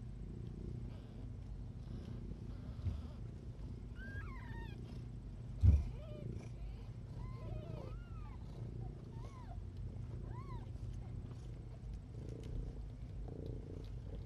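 A cat purring steadily, with newborn kittens letting out short high squeaking mews, about eight of them clustered through the middle. A single thump about halfway through.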